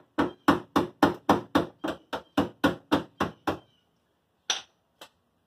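Hammer tapping quickly on the car's sheet-metal body at the wheel arch, about four strikes a second, each with a short metallic ring. The run stops about three and a half seconds in, and two more strikes follow.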